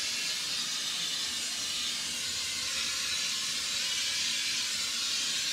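Cooking-oil spray hissing steadily as a coat of oil is sprayed onto the inside of an electric smoker to season it.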